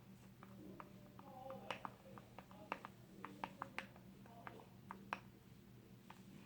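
Faint, irregular small clicks and sticky squishes of a glue, shaving cream and Tide slime mixture being stirred in a bowl, over a faint steady low hum.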